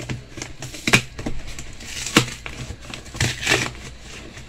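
A cardboard shipping box being opened by hand: flaps scraping and crackling, with a few sharp cracks and rips, the loudest about a second in.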